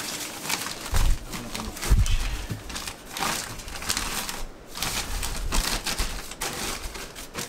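Plastic sheet crinkling and rustling as it is pushed and tucked by hand into a sink cut-out in a worktop, with two thumps about one and two seconds in.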